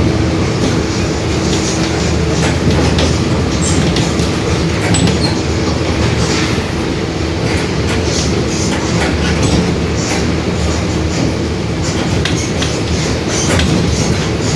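Mercedes-Benz OF-1721 BlueTec 5 city bus driving, its four-cylinder diesel and drivetrain giving a steady drone with a growling differential, while fittings rattle and click throughout.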